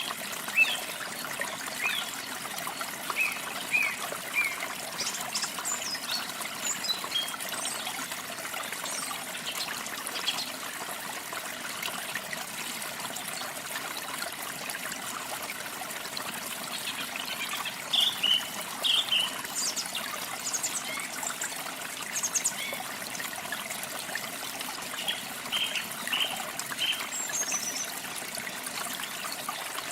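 Small birds chirping in short, high calls scattered throughout, over a steady trickle of running water.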